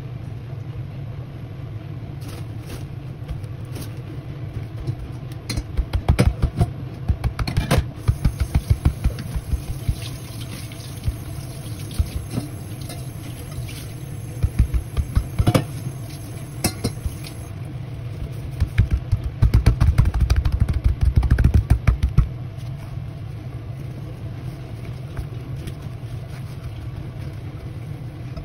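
Paper towels rustling and crinkling as they are pressed and patted onto raw chicken wings on a wooden cutting board, in several clusters of soft crackles and dull pats, over a steady low hum.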